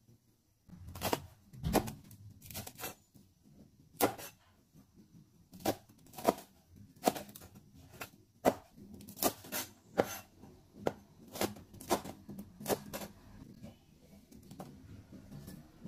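Cleaver slicing fresh chilli peppers on a wooden cutting board: a run of sharp, irregular knocks as the blade strikes the board, about one or two a second.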